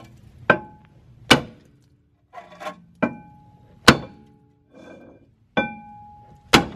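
Small sledgehammer striking a rusted-on rear brake rotor of a Mazdaspeed 3 to knock it loose from the hub: about six hard blows, each leaving a brief metallic ring from the cast-iron disc.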